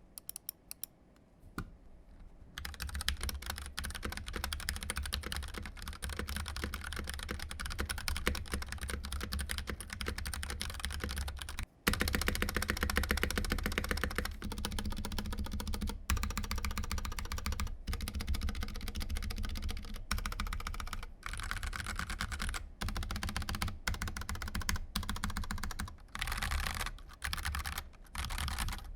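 Pressplay Rover84 mechanical keyboard with Gateron Brown tactile switches being typed on fast: a dense, continuous run of keystroke clacks that starts a couple of seconds in, with a brief break near the middle.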